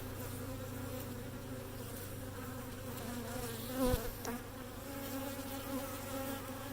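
Steady hum of a dense crowd of honey bees buzzing around an open hive, with a brief louder knock or buzz close by about four seconds in.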